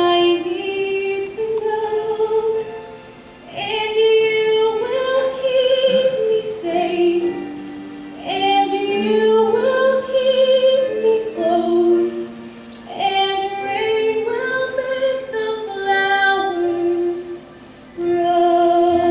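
A young woman's voice singing a slow musical-theatre ballad in long legato phrases, with brief breaths between phrases.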